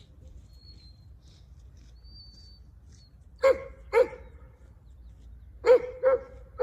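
A dog barking: two sharp barks about halfway through, then two more near the end.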